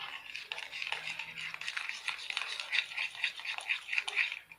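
A utensil stirring and scraping around a bowl of glue-based slime mixture as the activator is worked in: a quick, uneven run of small clicks and scrapes.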